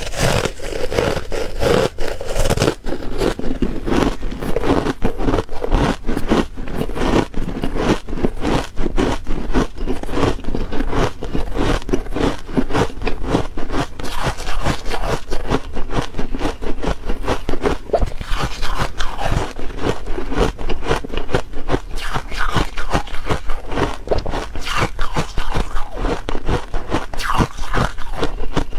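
Buckwheat ice being bitten and chewed, close up: a dense, unbroken run of crisp crunching and scraping cracks, many each second.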